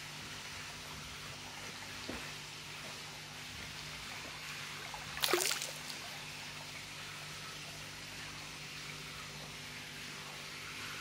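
Steady trickling and hiss of water flowing into a fish tank, with a faint pump hum underneath. About five seconds in, one short splash as a sturgeon breaks the water surface.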